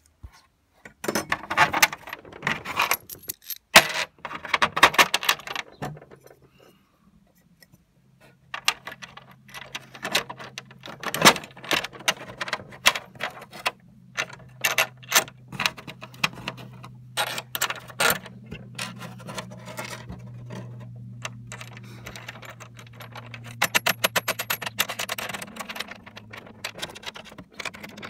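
Small stainless steel bolts, washers and nuts clinking and rattling as they are handled and fitted by hand through aluminium brackets on a fibreglass kayak hull. A low steady hum sits underneath from about six seconds in.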